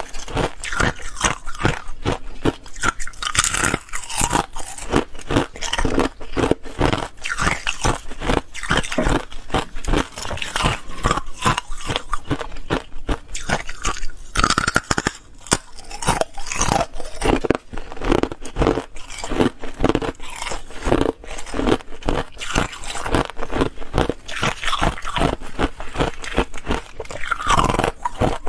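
Clear ice being bitten and chewed: continuous, rapid crunching and cracking as the hard pieces shatter between the teeth.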